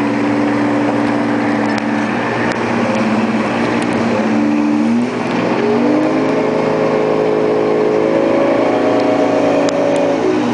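Fishing boat engine running steadily, then rising in pitch about five seconds in as the throttle is opened, over a constant rush of wind and water.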